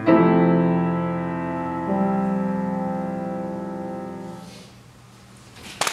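Grand piano playing the closing chords of a piece: one chord struck and held, a second struck about two seconds in, both left to ring until they die away. Applause breaks out right at the end.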